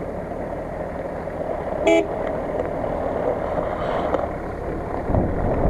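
One short car-horn toot about two seconds in, over steady background noise.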